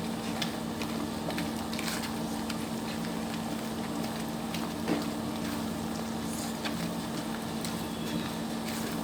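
Thick wheat halwa bubbling and spluttering in a kadai on a low gas flame, with scattered ladle clicks against the pan over a steady low hum.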